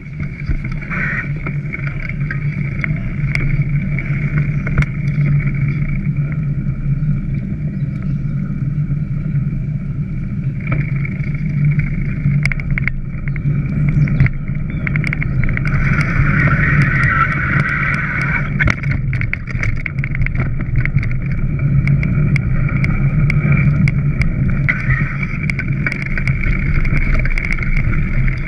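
Bicycle ride noise: a steady rumble with many small clicks and rattles as the bike moves over rough ground, with wind on the microphone.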